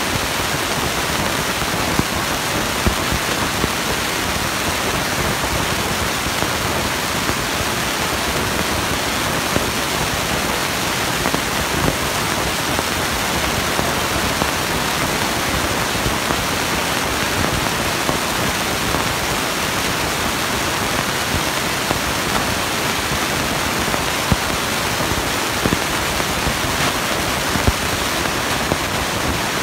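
Monster truck engine noise in an indoor arena, picked up by a phone as a steady, loud rushing noise with faint crackles and no clear engine note.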